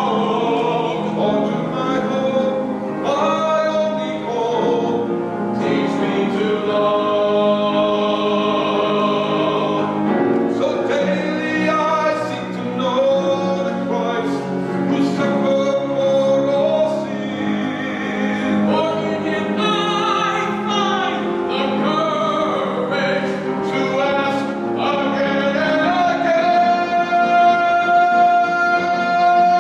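A man and a woman singing a duet in a full, operatic style over a musical accompaniment, with vibrato on the long notes. A high note is held steadily through the last few seconds.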